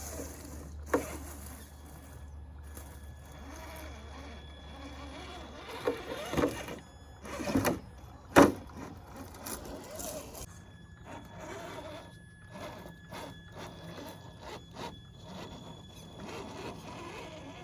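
Traxxas TRX-4 RC rock crawler running, its electric motor giving a faint steady whine, with several sharp knocks about six to eight and a half seconds in, the loudest near the end of that run.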